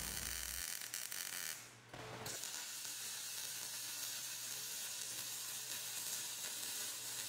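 MIG welder arc crackling and hissing steadily as a bead is run on steel. The sound drops out briefly about two seconds in, then the same crackle carries on from a second weld.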